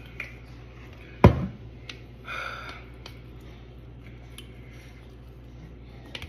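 A heavy thump about a second in, the loudest sound, as a plastic seltzer bottle is set down on the countertop, then a brief scrape and a few faint clicks of a metal fork against a plastic food tray.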